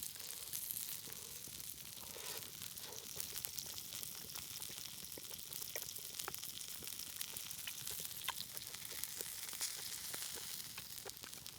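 Meat sizzling on a hot stone over a campfire: a steady high hiss with many small pops and crackles.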